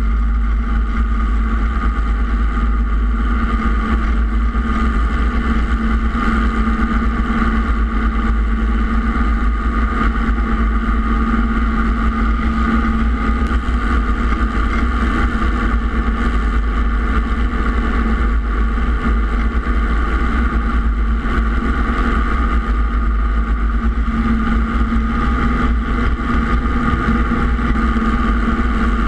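Robinson R22 helicopter's piston engine and rotors running steadily, heard from a camera mounted on the outside of the aircraft.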